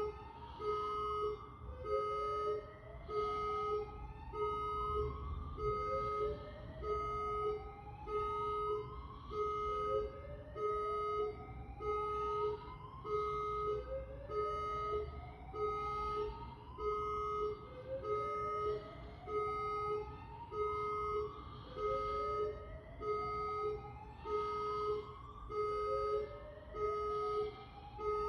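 Electronic alarm sounding without a break: a pulsing two-tone beep, with a rising whoop that repeats about every two and a half seconds.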